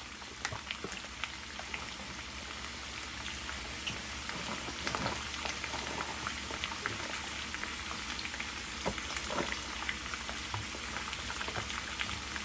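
Hot cooking oil sizzling steadily, with scattered crackles and pops.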